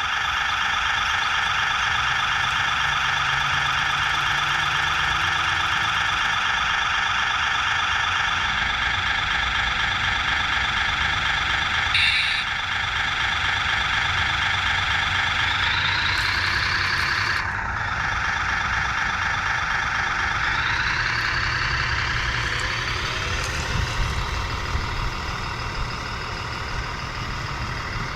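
Radio-controlled hydraulic excavator running with a steady, high electric whine. The whine rises in pitch about halfway through, breaks off briefly, then climbs again.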